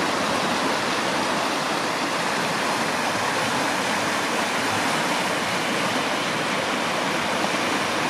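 Steady, unbroken rushing of flowing water, even in level throughout.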